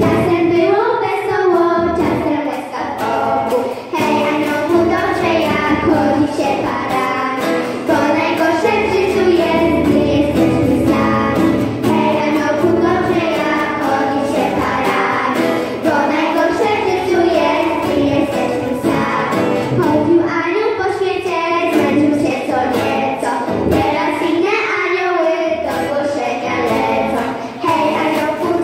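A choir of children's voices singing a Polish Christmas carol (kolęda) with musical accompaniment, without pause.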